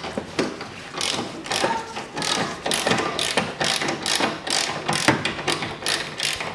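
Ratchet wrench with a 14 mm socket clicking in quick back-and-forth strokes, about three a second, as it backs off the nuts on a car's front strut top mount.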